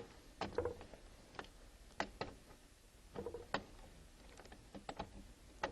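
Scattered light clicks and taps of ribbon-cable connectors and wiring being handled and fitted to the control panel's circuit board, at irregular moments.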